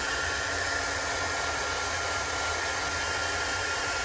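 Handheld hot-air dryer blowing steadily with a thin high whine, drying freshly applied chalk paste ink on burlap so it can be heat-set with an iron.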